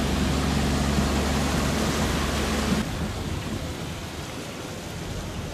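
An engine running steadily under a loud rushing noise. It cuts off abruptly about three seconds in, leaving a quieter, steady rushing noise.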